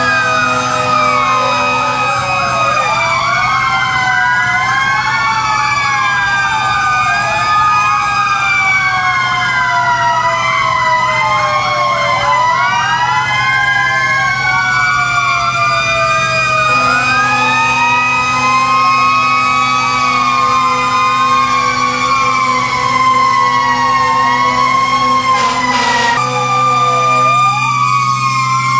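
Several fire-engine sirens sounding at once, their wailing pitches rising and falling out of step and overlapping, over a steady low engine hum.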